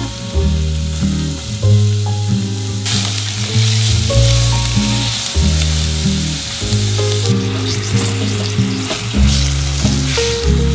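Chopped onion sizzling as it fries in a stainless steel pot, loudest in the middle, then stirred and scraped with a spatula near the end, under background music.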